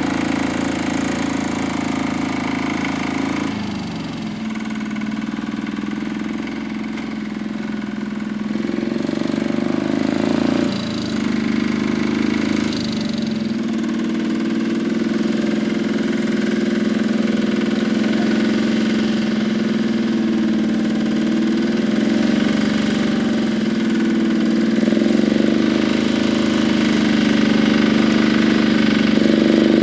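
Holder A12 tractor's single-cylinder, air-cooled two-stroke Sachs diesel engine running while pulling a cultivator, its pitch dipping and recovering several times under the changing load. It grows louder near the end as the tractor comes closer.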